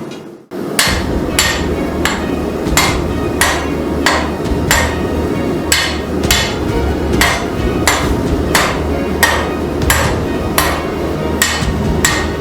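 Hammer blows on 5160 spring steel being forged, struck at an even pace of about three blows every two seconds, starting about half a second in. A steady low rumble runs underneath.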